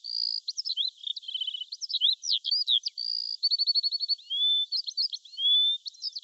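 Songbird singing: a fast, varied run of chirps, quick trills, short held whistles and sliding whistled notes, all high-pitched with nothing low beneath it.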